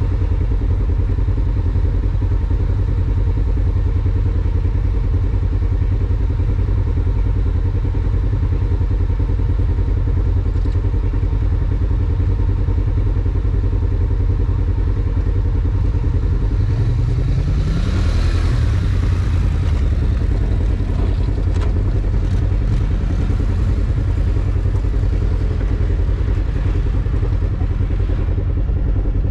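Off-road vehicle engine running steadily under way. The revs rise briefly about seventeen seconds in, followed by a louder rush of noise.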